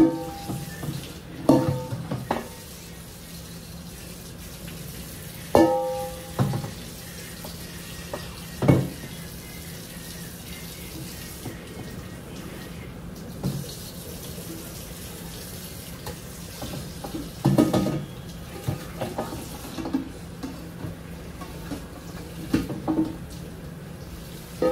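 Tap water running into a kitchen sink as big cooking pots are washed by hand, with about eight sharp metal clanks of pots and utensils that ring briefly.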